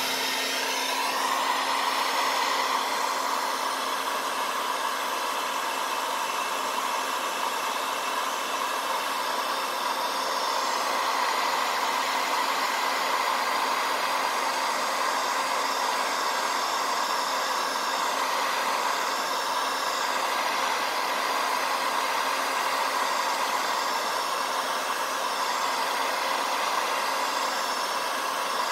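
Electric heat gun blowing hot air steadily to shrink heat-shrink tubing over a soldered wire splice, its fan settling to full speed in the first second, then a constant whirring hum.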